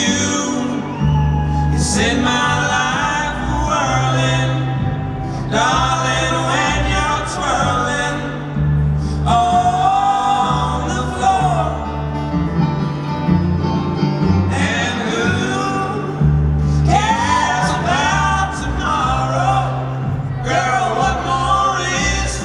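Live bluegrass-style band playing banjo, acoustic guitar and upright bass, with men singing in phrases of a few seconds broken by short pauses.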